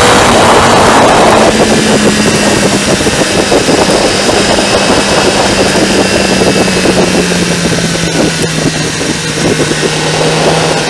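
Motorcycle engine running under way, heard from a camera mounted on the bike, with heavy wind rush over the microphone. The engine note falls slowly over the first several seconds and then holds steady, as the bike eases off.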